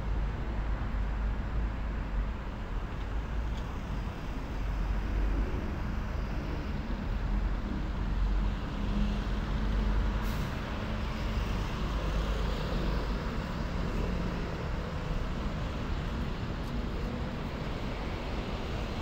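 City road traffic: cars and buses passing with a steady low rumble of engines and tyres, with a brief high hiss about halfway through.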